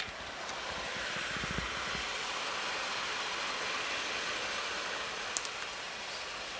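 Steady rushing noise of a laboratory heating oven's air-circulation fan running with the oven door open, with a few low knocks early on as the door swings and a light click about five seconds in.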